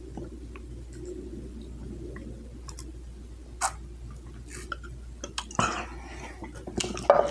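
A person chewing food close to the microphone: scattered wet mouth clicks and smacks over a steady low hum.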